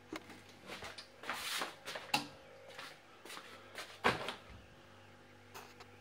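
Handling noise: a run of light clicks, knocks and rubbing scrapes, with a longer scrape about a second in and sharper knocks at about two and four seconds, over a faint steady mains hum.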